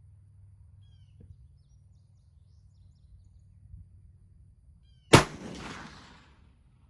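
A single rifle shot, most likely a 350 Legend, cracks about five seconds in and rolls away in an echo for about a second and a half. A few faint bird chirps come before it.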